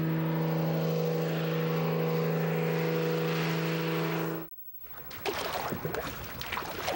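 Single-engine light aircraft's propeller engine giving a steady drone as it climbs out overhead, cutting off sharply about four and a half seconds in. Water sounds with irregular splashes and knocks take over near the end.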